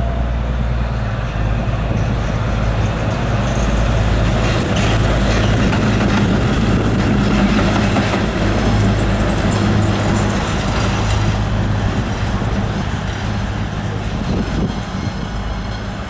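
A train passing, a steady rumble of wheels on rail under a low hum, loudest in the middle and easing off near the end.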